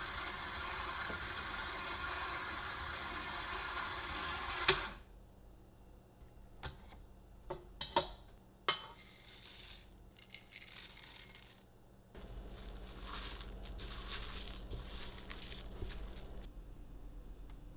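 Stand mixer motor running on its lowest speed, the paddle beating cookie dough in a steel bowl, switched off with a click about five seconds in. After it come a few sharp metal clicks and knocks, then a spatula scraping and stirring crumbly dough and mix-ins against the steel bowl in two stretches.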